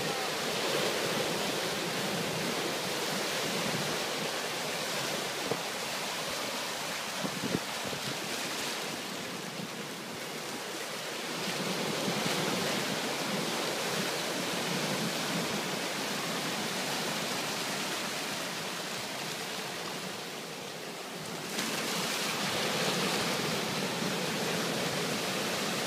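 Sea surf breaking and washing over shoreline rocks, a continuous rush that swells and eases in three long surges, the last rising sharply near the end.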